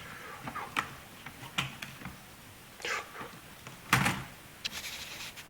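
Plastic laptop keyboard deck being pressed and snapped back onto the base: a series of sharp plastic clicks and knocks, the loudest about four seconds in.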